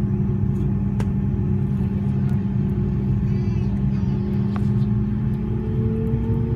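Airbus A330-300 jet engines running, heard inside the cabin over the wing as the airliner rolls along the runway. A steady loud rumble with a deep hum, and a higher tone creeping upward near the end.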